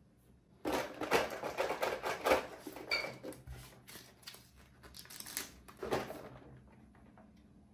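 Clear plastic parts bag crinkling and rustling in the hands, loudest for the first couple of seconds, with a second burst of rustling about five to six seconds in.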